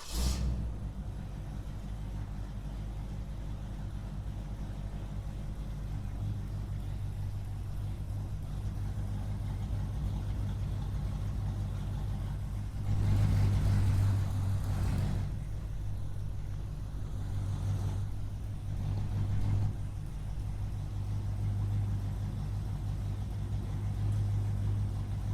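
Muscle car engine catching as it starts, then idling steadily. It revs up louder for about two seconds, roughly 13 seconds in, with two shorter blips of the throttle around 18 and 19 seconds.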